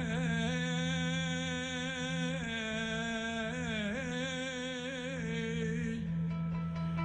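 Male voice singing a Harput maya, a free-rhythm Turkish folk song, holding a long wavering, ornamented line over a steady low drone. The voice fades out about six seconds in while the drone carries on.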